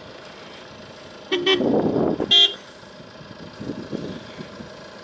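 Two short car-horn toots about a second apart, the second one louder. Between them is a brief loud rush of engine noise, over a steady low engine running.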